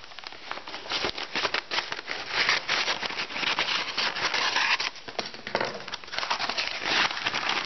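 Brown kraft packing paper crinkling and rustling as it is cut and handled by hand: a dense run of crackles with a couple of brief lulls.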